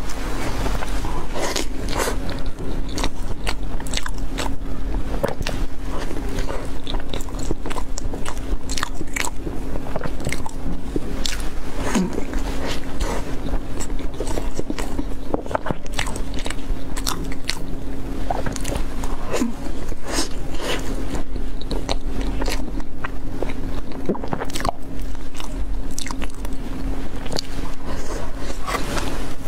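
Close-miked mouth sounds of a person biting and chewing soft rolled food: dense wet clicks and smacks all through, over a steady low electrical hum.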